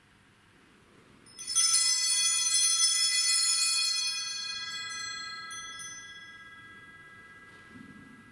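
Altar bell (a cluster of small Mass bells) shaken once at the Communion rite of a Catholic Mass: a bright jingling ring that starts about a second and a half in, with a few lighter jingles as it dies away slowly over several seconds. A soft low knock comes near the end.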